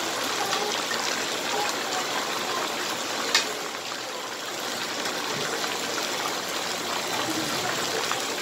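Chicken pieces sizzling steadily in hot oil in a large frying pan, with one sharp click about three and a half seconds in.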